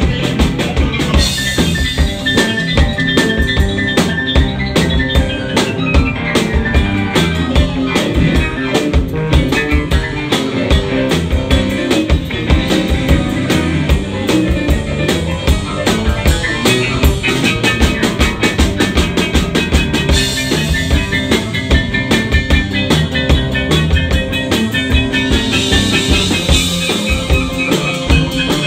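Live rock band playing an instrumental passage: drum kit keeping a steady beat under electric bass, electric guitar and a Yamaha stage piano played hard.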